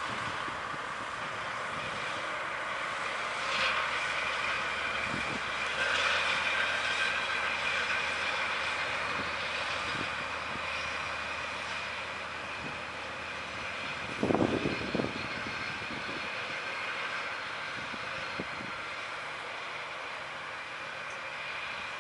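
DE10 diesel-hydraulic locomotive running as it draws away along the tracks, its engine hum fading out about two-thirds of the way through. A thin high whine sits over the running noise, and a short cluster of clanks comes about 14 seconds in.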